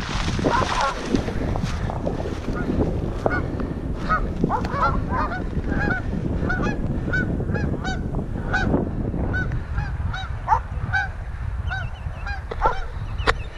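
Two geese honking repeatedly as they take off from the pond and fly off: short calls, a few a second, keeping on to the end. Steady wind rumble on the microphone underneath, with rustling through brush at the start.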